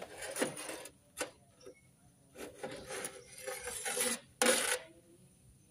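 Rubbing and scraping noises from hands working parts at the timing-chain end of an engine, in three stretches with the last and shortest the loudest.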